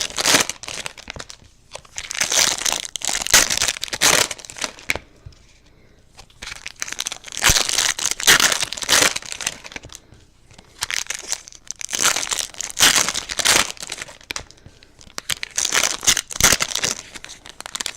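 Foil card-pack wrappers being torn open and crinkled, in bursts of two to three seconds with short pauses between.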